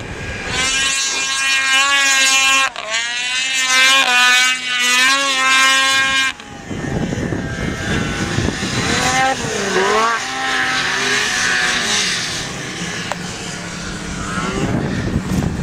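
Snowmobile engines running hard, their pitch wavering and gliding up and down as the sleds climb and turn. The sound breaks off suddenly about six seconds in and picks up with another engine whose pitch dips and then rises again around ten seconds.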